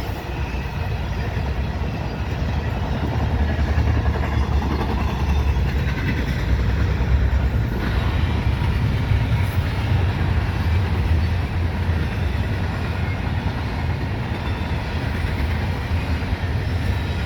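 Empty well cars of a freight train rolling past, a steady low rumble of wheels on rail that grows slightly louder a few seconds in.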